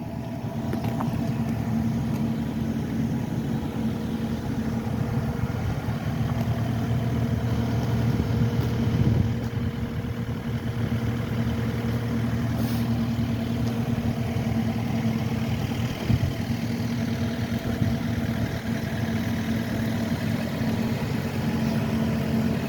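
An engine idling steadily, a constant-pitched hum that holds an even level throughout.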